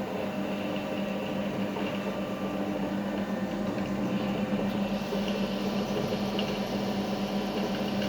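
3B12 universal cylindrical grinding machine running: a steady electric-motor hum with a strong low tone, and a little more hiss from about five seconds in.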